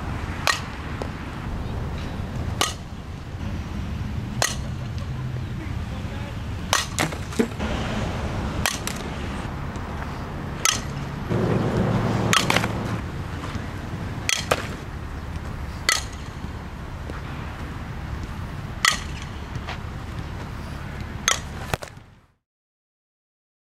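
Softball bat hitting the ball again and again in batting practice: a sharp crack roughly every two seconds, a few of them in quick pairs, over a steady low background hum. The sound cuts out suddenly about two seconds before the end.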